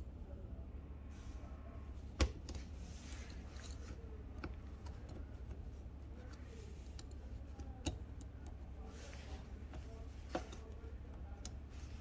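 A few sharp clicks as a metal pick pries at the small plastic retaining clips on a copier bypass feed-roller shaft, the loudest about two seconds in, over a steady low hum.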